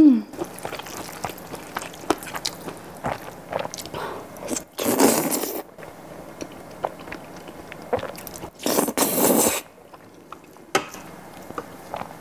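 Close-miked eating of cream pasta: small wet chewing clicks and a fork scraping through the noodles, with two long slurps of noodles, about five and about nine seconds in.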